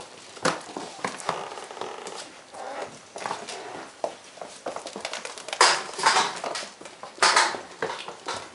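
Weimaraner puppies scrabbling about on a hard floor: many small clicks and pattering scuffs of claws and paws, with two louder, noisier bursts about six and seven seconds in.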